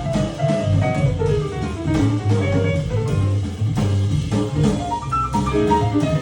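Guitar-led instrumental music with bass and drums, played back through a pair of Cabasse Minorca MC40 three-way bookshelf speakers; the melody moves in falling runs of notes over a steady bass line.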